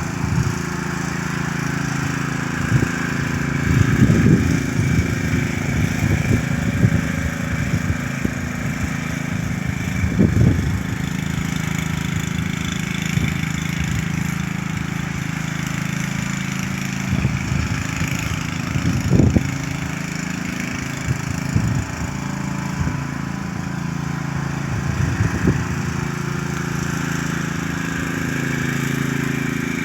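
Troy-Bilt lawn mower engine running steadily, with a few brief louder bursts of noise every several seconds.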